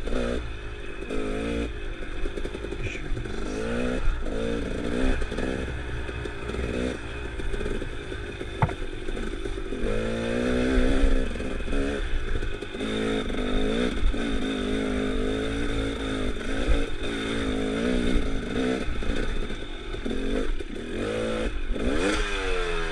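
Dirt bike engine revving up and down over and over as it rides a rough, rocky trail, with rocks clattering and scraping under the bike and a sharp knock about nine seconds in.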